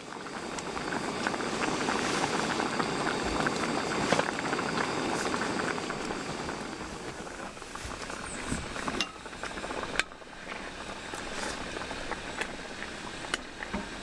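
A pot of chicken boiling hard with dense bubbling. About seven seconds in the bubbling thins out, and a few sharp metal clinks of utensils against the pot and bowls come through.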